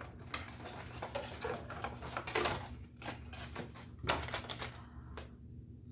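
Door-hardware packaging being dug through: paper and cardboard rustling with many small clicks and knocks of handling.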